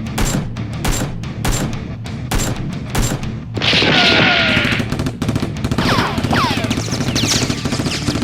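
Gunfire sound effects over background music: single shots about twice a second, then a loud burst with whizzing, falling swishes a little past the middle, then rapid automatic fire.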